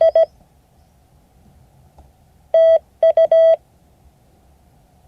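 Morse code sent as a beeping tone at one steady pitch, keyed in short dits and longer dahs. There is a quick group right at the start and another, beginning with a long dah, about two and a half seconds in, with gaps between the characters.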